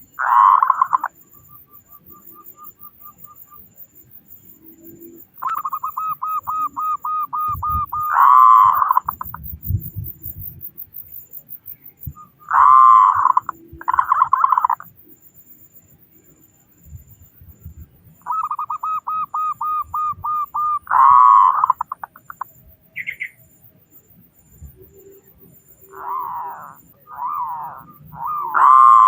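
Zebra doves (perkutut) singing: runs of rapid, even staccato notes that lead into loud rolling coos, repeated several times, with overlapping coo phrases near the end.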